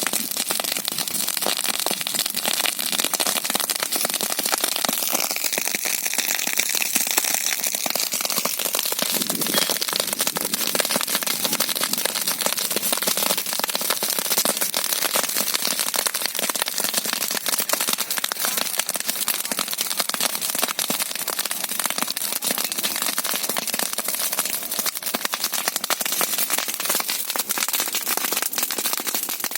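Wood fire burning in a fireplace, crackling steadily with dense, rapid pops and snaps over a constant hiss.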